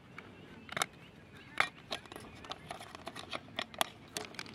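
Small yellow plastic hand-mirror frame being pried off its glass by hand, its snap-fit clips letting go in a series of sharp plastic clicks and snaps, the sharpest about one and a half seconds in.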